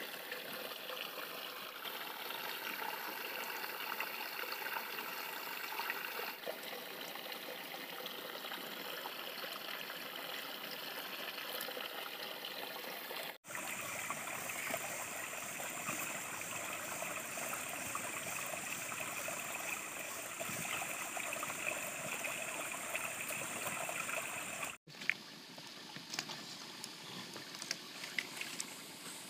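Steady rush of a flowing forest stream, its tone changing abruptly twice at cuts in the footage, with a few sharp clicks near the end.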